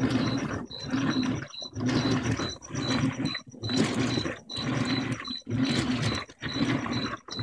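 Whirlpool Vantage 8.5 kg top-load HE washer agitating a load of sheets: the drive motor runs in short strokes about once a second, with a short pause between strokes, and a low hum and a high whine during each stroke.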